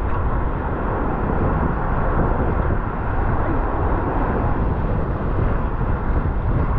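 Wind buffeting the microphone over heavy surf: a loud, steady rushing roar, heaviest in the low end.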